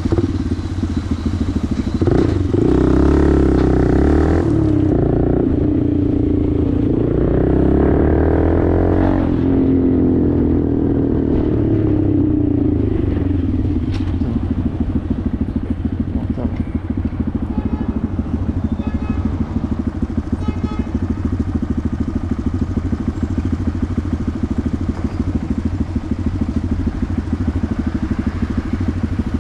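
Honda Grom's single-cylinder engine through an aftermarket Toce exhaust, revving with the pitch rising and falling for the first dozen seconds, then settling to a steady idle.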